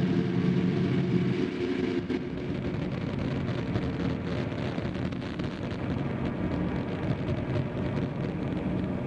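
Harsh noise drone from ambient tracks run through a chain of guitar effects pedals into a Boss RC-505 looper: a loud, dense, crackling wash of distorted noise. Held low tones under it fade out about two seconds in, leaving a steady rumbling roar.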